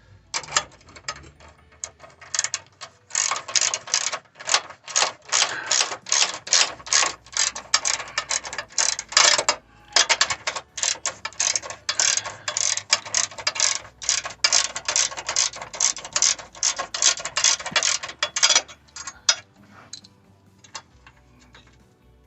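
Hand ratchet clicking in quick runs of short strokes while the mounting bolts of an air suspension compressor are tightened. The clicking pauses briefly midway and stops a few seconds before the end.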